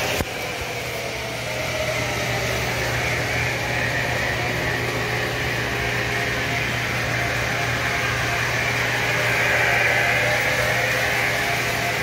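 O-gauge model trains running on three-rail track: a steady whirring rumble of wheels and motors over a constant low hum, growing a little louder about nine seconds in as a train comes closer. A short click near the start.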